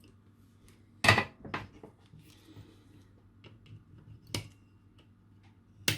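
A few sharp clicks and knocks from small tools and the circuit board being handled on a workbench. The loudest comes about a second in, with more near four and a half seconds and just before the end, over a low steady hum.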